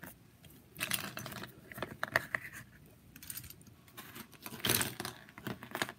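Small hard-plastic toy motorcycle helmets, Biker Mice from Mars figure accessories, clicking and clacking as they are set down one after another on a tile surface: scattered sharp clicks, with a quick cluster near the end.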